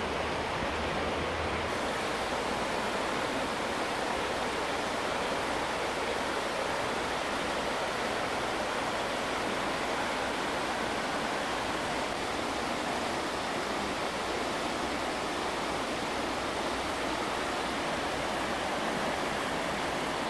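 Creek water rushing and rippling over a shallow rocky bed, a steady, even babble.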